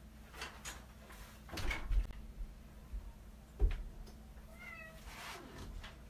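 A metal step ladder being shifted, knocking and clunking against the floor around two seconds in and again at about three and a half. A cat meows once, briefly, about a second later.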